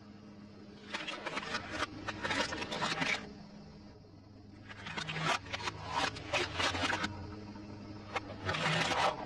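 Plastic objects crackling and crunching under a car tyre, in three bursts: about a second in, about five seconds in, and near the end. A steady low engine hum runs underneath.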